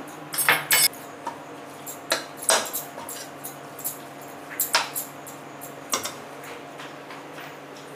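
Spatula scraping and knocking against a stainless steel kadai while thick masala paste is stirred and fried, in irregular strokes that come in clusters near the start, around two seconds in and around five seconds in.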